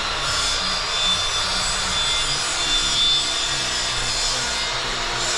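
Handheld power tool running continuously against wood: a steady abrasive hiss over a constant motor whine.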